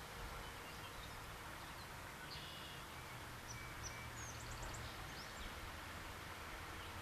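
Small birds giving a few short high chirps, then a quick run of rising notes about halfway through, over a steady outdoor hiss with a low rumble underneath.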